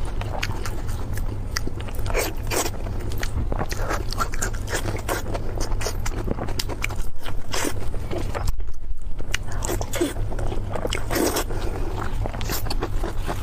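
Close-miked mukbang eating: a person biting and chewing food with many short, irregular wet clicks and smacks, over a steady low hum.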